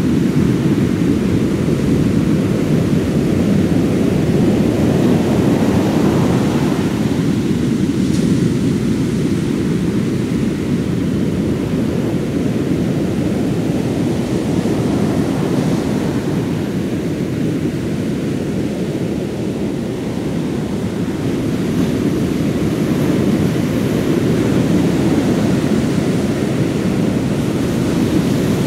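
Wind buffeting the microphone over the sea and surf, a loud steady low rushing noise that swells and eases slightly.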